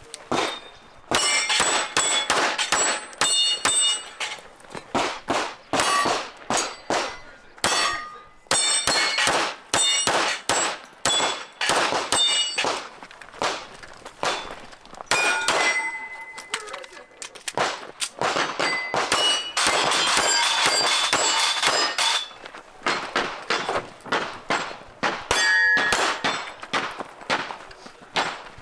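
Pistol shots fired in quick strings, each hit answered by the metallic ring of a steel target plate.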